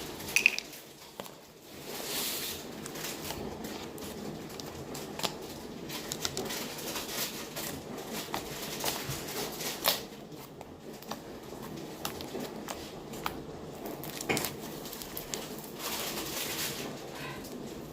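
Slime being handled and squished, with many small sharp clicks and crackles scattered through it.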